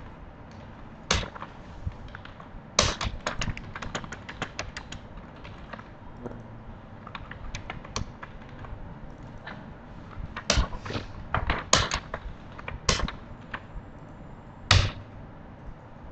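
Computer keyboard typing in bursts: a quick run of keystrokes about three seconds in, then scattered keystrokes, with a few louder single clicks near the end.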